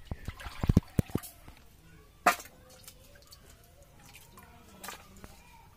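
Water sloshing and splashing in steel bowls as small fish are washed by hand, with a quick cluster of knocks in the first second and one sharp clink about two seconds in.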